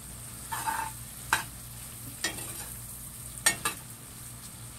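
Vegetables and sliced sausage sizzling as they sauté in an enamelled cast-iron Dutch oven, stirred with a metal spoon. The spoon scrapes and knocks against the pot about five times over the steady sizzle, loudest about three and a half seconds in.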